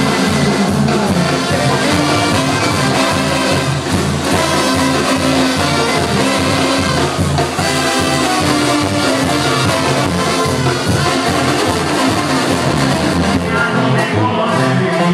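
Live Latin band playing with a brass section of trumpets, trombones and saxophone over bass and drums, heard from the audience. The bass and drums thin out near the end.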